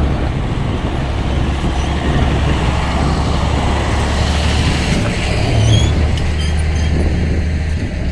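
John Deere 6150R tractor's six-cylinder diesel engine running steadily as the tractor drives past on a road towing a folded cultivator, with tyre noise; it is loudest about two thirds of the way through.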